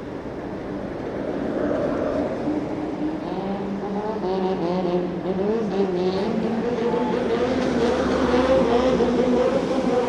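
Fire engine (pumper truck) engine running and revving, growing steadily louder as it gets under way.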